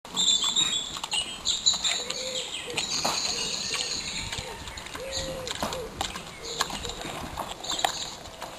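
Small birds chirping, with repeated high notes that are busiest in the first few seconds, over scattered sharp clicks and crackles.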